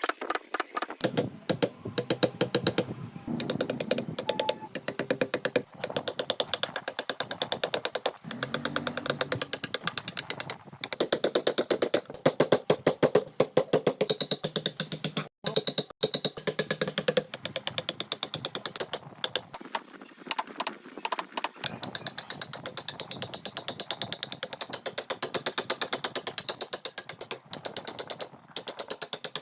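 Rapid, even tapping of hand tools on wood, as in chisel-and-mallet carving, at many knocks a second with a few brief pauses.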